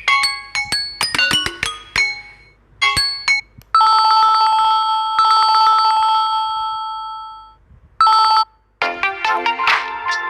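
Samsung Galaxy M31 ringtones played in turn: the last notes of a plucked, chiming tune, then a trilling electronic phone-ring tone that repeats and fades out, and near the end a new, busier electronic tune begins.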